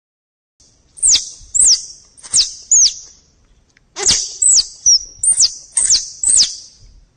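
Grey squirrel calling: about ten sharp, very high chirps, each falling quickly in pitch, in two runs with a short pause a little before the middle.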